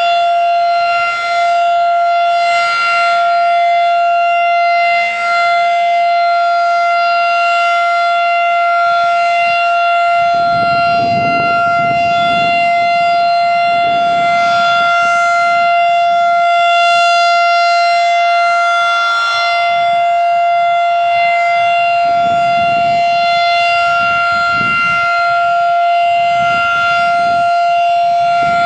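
Federal Signal 2001-DC outdoor warning siren sounding a steady tone at one constant pitch during a monthly test.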